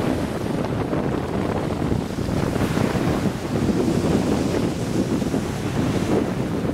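Wind buffeting the microphone, a low steady noise, over the wash of sea waves.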